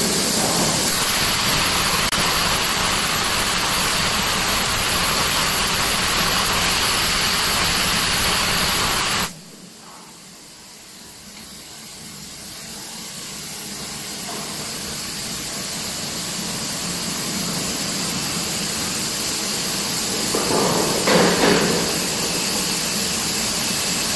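Industrial machinery noise from a rail-end induction heating line: a loud, steady hiss with a low rumble under it. It drops off abruptly about nine seconds in and then slowly builds back up, with a brief clatter near the end.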